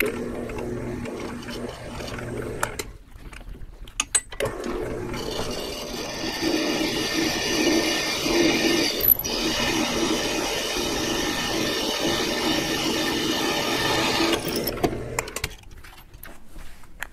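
A motorized shop tool runs steadily in two stretches. The first lasts about three seconds. After a short pause with a few clicks, it runs again for about ten seconds with a steady high whine.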